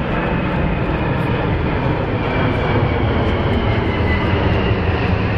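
Antonov An-225 Mriya's six turbofan engines during a low flyover: a steady, dense jet rumble that holds at an even loudness.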